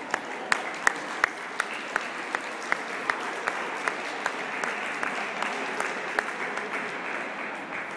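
Audience applauding, with one clapper close to the microphone keeping a steady beat of about three claps a second; the loud claps stop about six seconds in while the general applause carries on.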